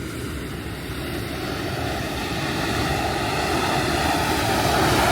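Ocean surf rushing steadily, mixed with wind on the microphone, growing gradually louder.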